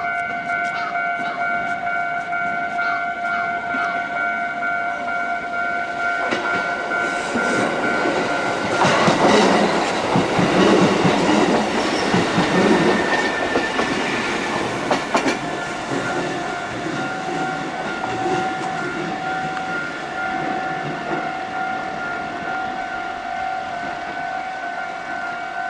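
Level-crossing warning alarm ringing steadily while a Kotoden electric train runs past, its wheels clicking over the rail joints. The train noise builds from about six seconds in, is loudest around ten to thirteen seconds, then fades while the crossing alarm keeps ringing.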